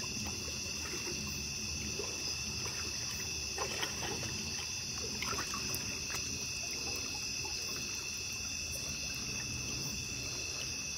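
Steady high-pitched chirring chorus of night insects such as crickets, with faint water trickling and a few soft ticks near the middle.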